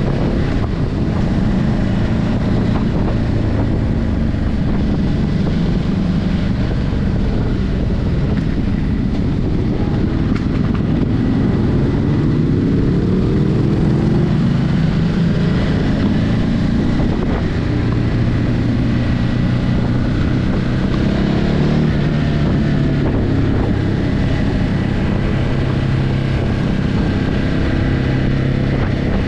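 Ducati Hypermotard 950's L-twin engine through its stock exhaust while riding, the engine note climbing in pitch around the middle and then settling to a steadier, lower note. Wind noise on the microphone runs underneath.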